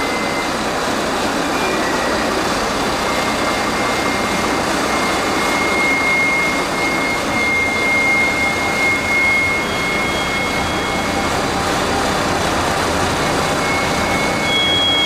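Steady rushing mechanical noise in an underground rail station, with a thin high whistle that comes and goes and a second, higher whistle near the end.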